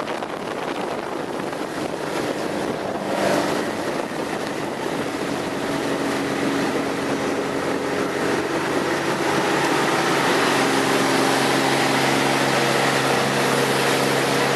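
Powerboat engine running under way over a rush of wind and water. Its steady hum grows louder and clearer in the second half.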